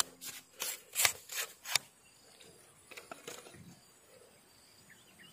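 Handling noise as a small fish is landed by hand on a pole line: a quick run of about seven sharp scrapes and rustles in the first two seconds, then only faint, scattered rustling.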